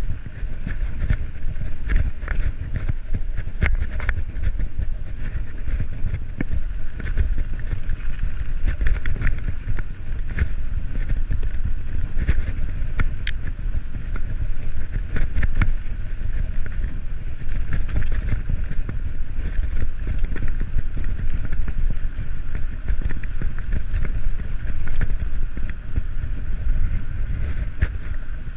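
Wind rushing over a cyclist's camera microphone while riding, a steady low rumble with frequent small clicks and rattles from the bike and road.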